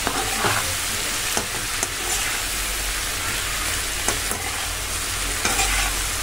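Sliced bitter gourd and onion sizzling in hot oil in a kadai, stirred with a perforated steel ladle that scrapes and clicks against the pan a few times.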